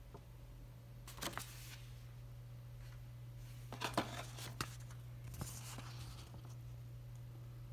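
Thin paper leaflets handled by hand, rustling in three short bursts with a couple of light clicks: about a second in, around four seconds in, and about five and a half seconds in. A steady low hum runs underneath.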